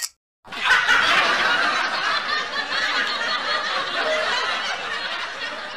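Canned laugh track: a crowd of many people laughing together, starting about half a second in after a brief silence.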